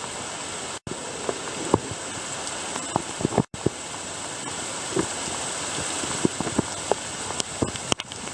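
Heavy thunderstorm rain falling steadily, with single drops ticking sharply close by. The audio cuts out briefly twice.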